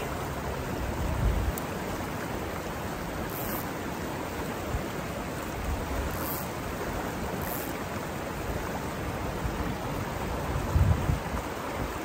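River water rushing steadily over rocks in small rapids, an even rush with no changes. Brief low rumbles come about a second in and again near the end.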